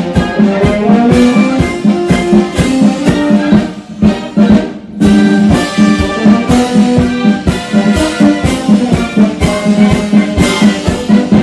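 Military brass band playing, with brass chords over a steady drum beat. The music drops back briefly about four to five seconds in, then carries on.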